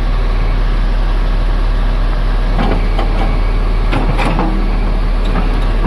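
Tata Hitachi excavator's diesel engine running with a steady low drone, a few short knocks over it in the second half.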